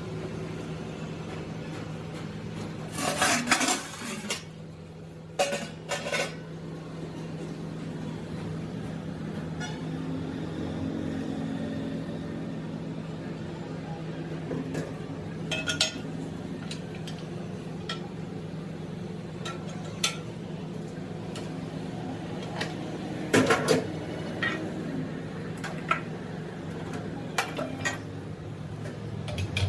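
Metal tools and parts clinking and clanking in several short clusters, over a steady low machine hum.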